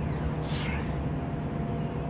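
Steady low rumble of city traffic, with one short hiss about half a second in.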